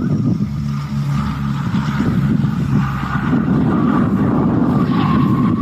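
Lockheed L-188 Electra airtanker's four turboprop engines and propellers running in a steady drone with a whine above it, as the plane comes in low for a landing with its landing gear up. From about three seconds in, a rougher noise joins as the belly meets the runway.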